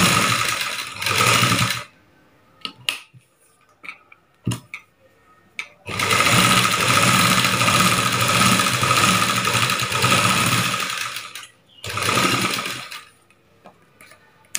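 Sewing machine running in three bursts of stitching: about two seconds at the start, a long run of about five seconds from around six seconds in, and a short one around twelve seconds. It is sewing a second line of stitches along a blouse's pa-shaped neckline. In the pauses there are short clicks and taps as the fabric is handled and turned.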